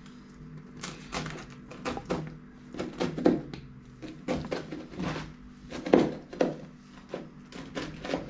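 Large kitchen knife chopping down through a baked pizza's crust onto the board beneath, a run of uneven knocks roughly two a second, used in place of a pizza cutter.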